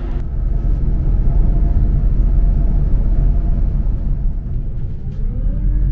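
Scania bus running on the road, heard from inside the cabin: a steady low engine and road rumble, with the engine note rising slightly near the end.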